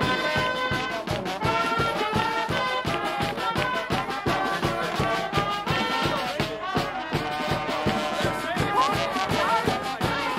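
Marching band playing a brass tune over a steady drumbeat.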